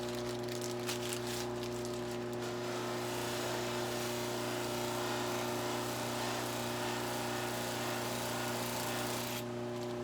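Electric buffing wheel motor running with a steady hum, and from about two seconds in a hissing rub as a pipe stem is pressed against the wheel charged with white diamond compound, stopping shortly before the end.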